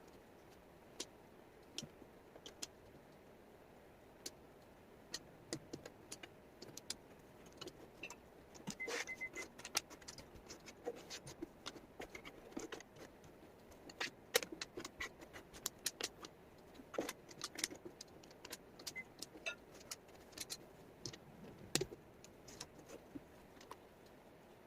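Wooden jigsaw puzzle pieces clicking and clattering as they are handled and sorted: many small, irregular taps, sparse at first and busier about a third of the way in.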